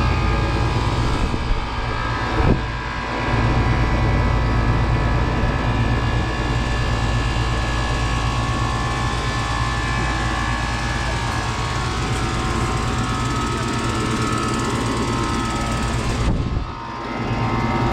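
Outdoor unit of a 2003 Goodman 4-ton air conditioner running, its Bristol compressor humming steadily under the whir of the condenser fan. A brief knock about two and a half seconds in.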